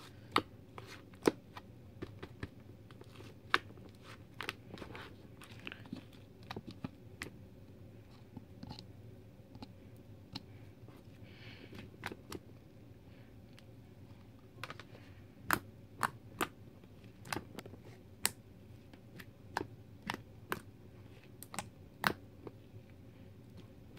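Slime being squished, poked and stretched by hand, giving off irregular sharp clicks and pops that come more often in the second half.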